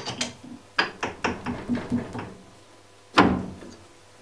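Chuck key turning a jaw screw in a four-jaw lathe chuck: a quick run of small metal clicks and knocks, then one loud knock about three seconds in.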